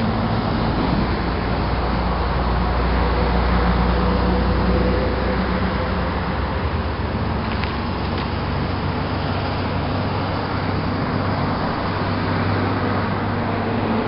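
Steady engine and road noise of a moving car, with a low engine drone that is a little stronger in the first few seconds.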